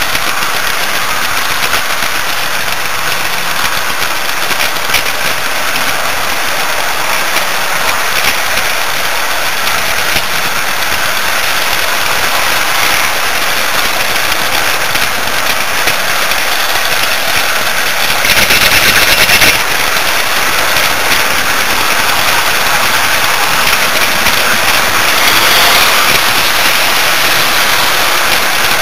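HO-scale model train running on its track, heard from a camera riding aboard it: a steady whirring rush of the motor and wheels on the rails. It gets louder for a second or so about two-thirds of the way through, and briefly again near the end.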